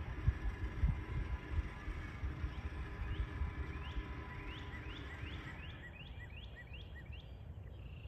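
Wind rumbling on the microphone, with a bird chirping repeatedly in short rising notes about three a second, and a faint steady tone that fades out a little past halfway. The siren's voice message has ended.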